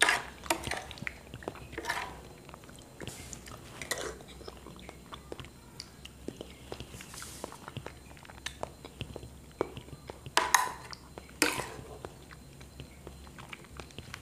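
Close-up eating sounds of soft chocolate pudding with vanilla custard: wet chewing and mouth noises at irregular moments. A metal spoon scrapes and clicks against a ceramic plate.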